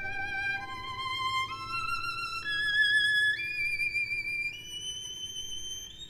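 Violin playing a slow upward climb of about seven held notes, one roughly every second, each with a wide vibrato, rising into a very high register.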